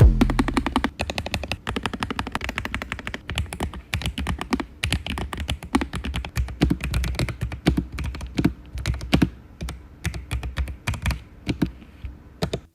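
Typing on a LOFREE Flow low-profile mechanical keyboard: a fast, irregular stream of key clicks and clacks as the switches are pressed and bottom out.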